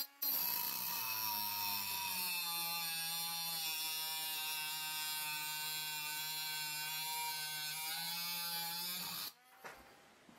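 Compact cordless angle grinder with a thin cut-off disc cutting through a flat steel bar: a steady high motor whine over a hissing grind of disc on metal. It stops about nine seconds in.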